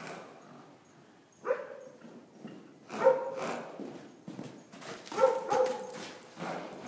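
A mule moving loose over soft arena dirt, with hoofbeats, and three short barking calls about a second and a half apart that stand out louder than the hooves.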